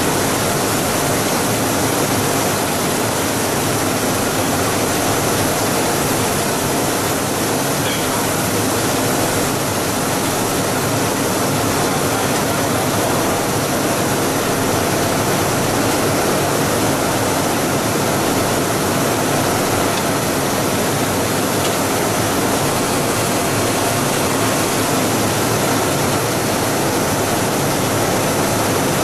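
Plastic extruder with a die-face pelletizer running: a loud, steady, even machine noise that does not change.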